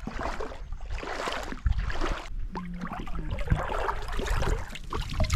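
Shallow seawater splashing and sloshing in uneven swishes, as someone wades through it.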